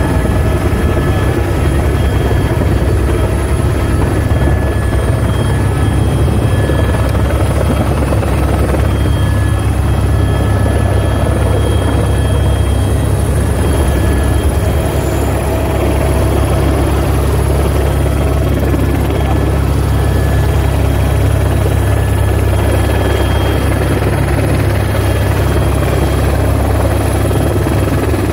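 Helicopter in flight heard from inside its cabin: a loud, steady low rotor drone with thin, steady high engine whines above it.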